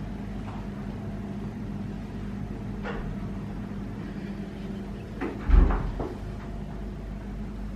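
Steady low hum, with a faint knock about three seconds in and then a single loud, dull thump about five and a half seconds in.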